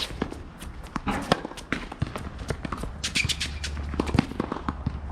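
Quick footsteps and shoe scuffs of tennis players moving on a hard court, a rapid run of sharp taps with a few louder knocks.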